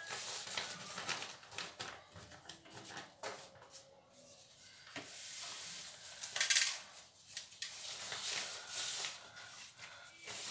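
Rustling and crinkling of a roll of galash (phyllo) pastry sheets and its wrapping being unrolled by hand on a steel tray, with light knocks against the tray. The loudest rustle comes about six and a half seconds in.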